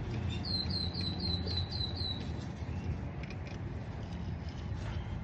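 A bird calling: a quick run of about eight short, high, falling chirps lasting under two seconds, over a steady low background hum.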